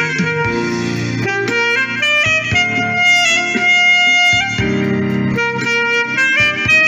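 Saxophone playing a smooth-jazz melody of held and moving notes over a backing track with guitar.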